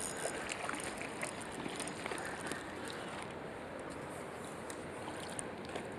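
Steady rush of flowing river water, with a few faint clicks and ticks over it.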